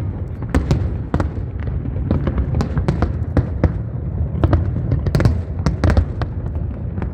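Aerial fireworks going off in a rapid, irregular run of bangs and crackles over a continuous low rumble.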